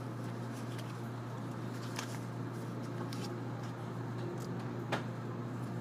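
Inside a 485-series electric train moving off slowly: a steady low hum with a faint rumble, and a few sharp clicks, the loudest about five seconds in.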